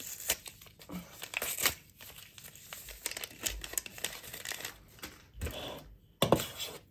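Paper crinkling and tearing, with small irregular scrapes and taps of a spoon in a mixing bowl of powdered sugar, as vanilla sugar is added to the powdered sugar for the cookie coating.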